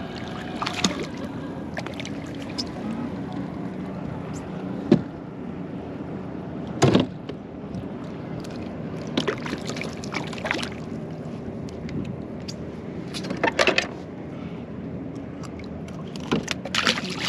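Kayak on open water: a steady low hum with water sounds, broken by a handful of short sharp knocks and splashes against the hull, the loudest about five and seven seconds in and a cluster near the end.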